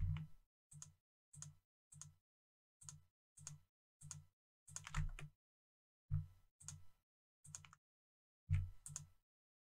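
Computer mouse and keyboard clicking: about a dozen short separate clicks, roughly half a second to a second apart, some in quick pairs, as the left mouse button is clicked repeatedly with Shift and Alt held down.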